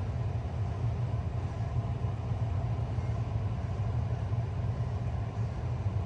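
2000 Bard 3-ton wall-hung heat pump running in cool mode: a steady low hum with an even rushing noise over it.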